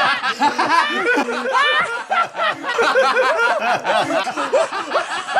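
Two men laughing loudly together, hearty overlapping laughter that goes on without a break.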